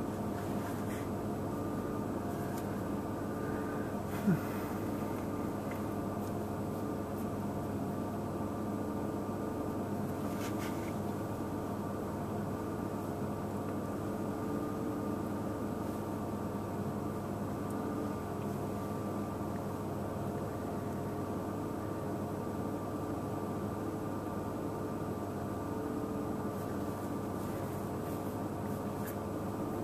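Steady mechanical hum made of several held tones, unchanging throughout, with one sharp click about four seconds in.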